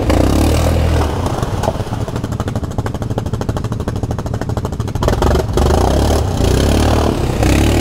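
ATV engine revving as the quad churns through a mud hole, spinning its wheels. The revs drop to a slow, pulsing chug partway in, then climb again about five seconds in.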